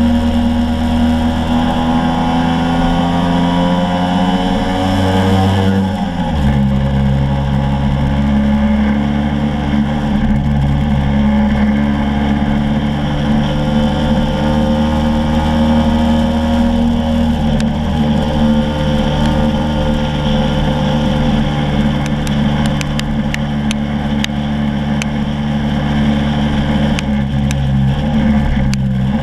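Motor scooter engine running steadily under load, with wind rush over the fork-mounted microphone. Its pitch drops suddenly about six seconds in and again near the end.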